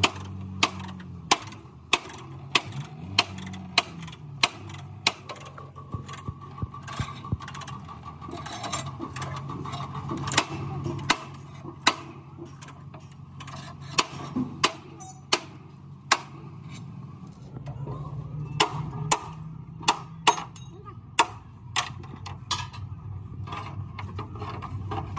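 Hammer blows ringing on a steel truck chassis rail as it is beaten straight while clamped, a steady series at about one and a half strikes a second that turns more irregular later, over a low steady hum.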